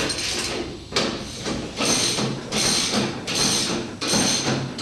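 Floor jack being pumped by its long handle to lift a golf cart: about six rasping mechanical strokes, a little under a second apart.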